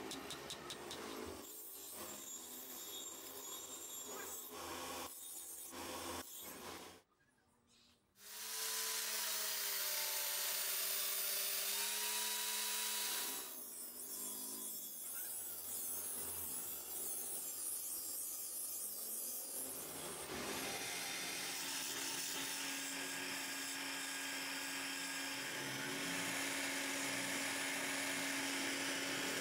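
A few hammer strikes on hot iron over an anvil, then a grinding wheel grinding steel. From about two-thirds of the way in, a wood lathe spins and hums steadily while a small wooden piece is turned.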